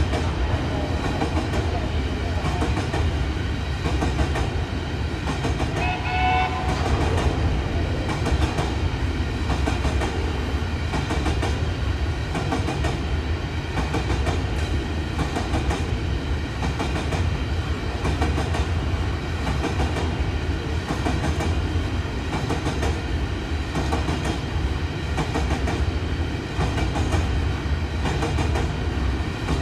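Long freight train of hopper wagons rolling past at steady speed: a continuous low rumble with the regular clickety-clack of wheels over rail joints.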